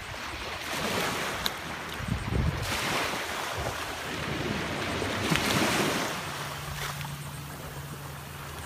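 Small surf waves washing up the beach and running back over the sand, swelling twice and then easing off, with wind buffeting the microphone.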